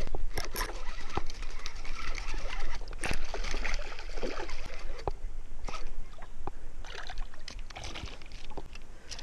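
Spinning reel being wound in against a small hooked pike, with scattered knocks of rod and reel handling and water sloshing around a rowboat.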